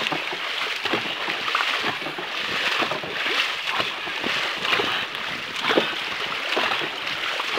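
Dragon boat paddles splashing and pulling through the water in a steady stroke rhythm, with water rushing past the hull and wind on the microphone.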